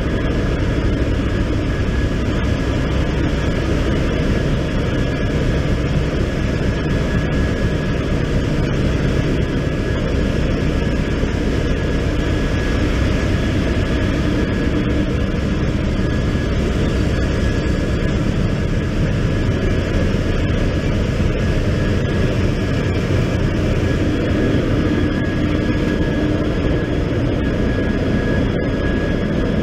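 Loud, steady din of a cargo ship's engine room, many machines running at once, with a thin steady whine on top.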